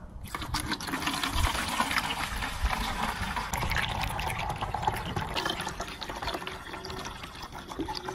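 Water poured from a plastic bottle into a plastic funnel, running down into a plastic bottle below: a steady splashing pour that starts just after the beginning and eases off slightly over the last few seconds.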